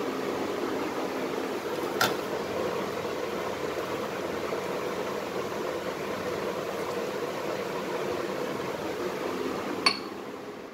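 A steady mechanical hum like a fan, with a sharp click about two seconds in and another near the end, after which the hum drops away.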